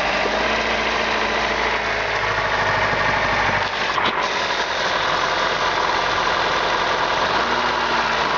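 Honda D15B four-cylinder engine running with a knock from the bottom end: the crankshaft knocking in its main bearings, whose shells turned out to be scored.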